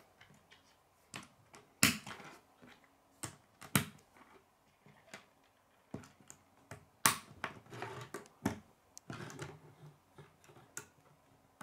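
Plastic K'nex rods and connectors being handled and clicked together on a wooden table: scattered sharp clicks, three of them much louder than the rest, with soft rattling between.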